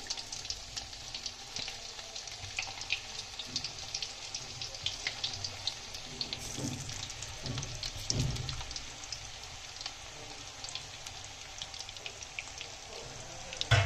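Cauliflower-and-gram-flour koftas deep-frying in hot oil in a kadhai: a steady sizzle with many small crackles and pops. A few dull low knocks come around the middle.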